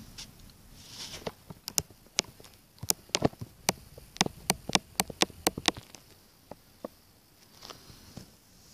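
Large raindrops at the start of a thunderstorm striking a hard surface close to the microphone: a run of sharp, irregular ticks, about three a second through the middle, then a few scattered ones.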